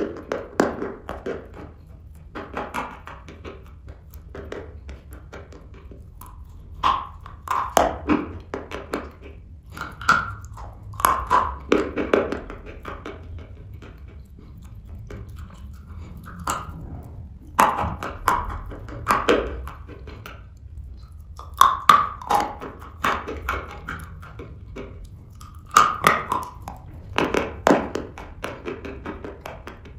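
Dry chalk being bitten and chewed up close, in crunchy clusters of sharp cracks every few seconds with quieter chewing between.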